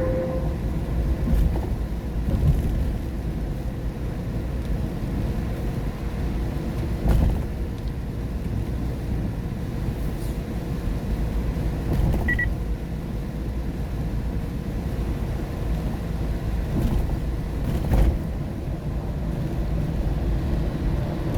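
A car driving in rain, heard from inside the cabin: a steady low rumble of tyres and engine, with a few short thumps from the road and a brief high beep about twelve seconds in.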